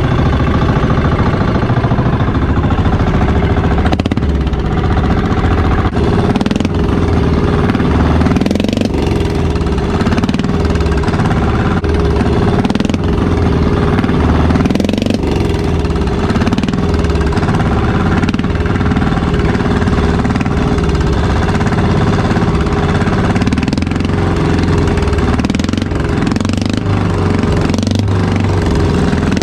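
Engine of a motorized outrigger boat (bangka) running steadily while the boat is under way.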